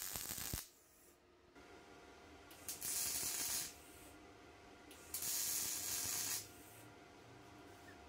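MIG welder: the welding arc crackles briefly and stops about half a second in. Two more hissing bursts of about a second each follow, near three seconds in and from five seconds in, over a faint steady hum.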